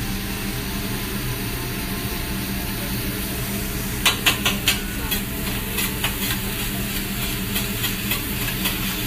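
Food sizzling on a hot hibachi griddle over a steady low hum. From about four seconds in, a metal spatula clicks and scrapes on the steel plate as noodles are stirred and tossed.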